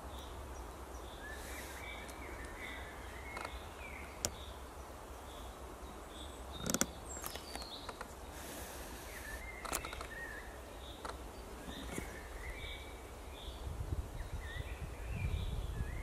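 Songbirds of a spring forest: one bird repeats a short high note about twice a second while another sings warbling phrases at a lower pitch. A few sharp clicks are heard, and a low rumble comes near the end.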